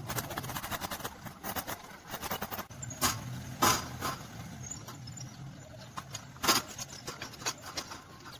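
Irregular clicking and crackling with three louder sharp knocks: two close together near the middle and one later. This is the clatter of hand work on metal.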